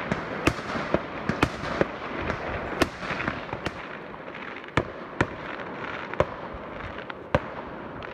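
Fireworks going off: about a dozen sharp bangs at irregular intervals over a continuous noisy din of further explosions, the din thinning about halfway through.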